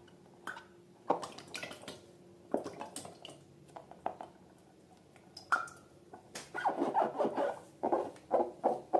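Sticky slime being worked by hand, giving wet squelches and clicks, a few at a time at first and coming quickly one after another from about two-thirds of the way in.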